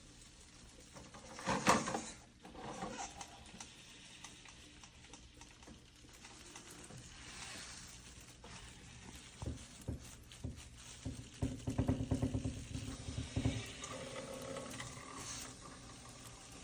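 Dish-washing robot at work: short runs of rapid mechanical buzzing from its motors, with knocks and clatter, the loudest clatter about two seconds in.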